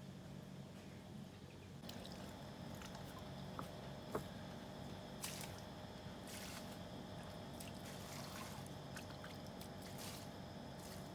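Faint water dripping and trickling, with scattered small splashes over a steady low hum.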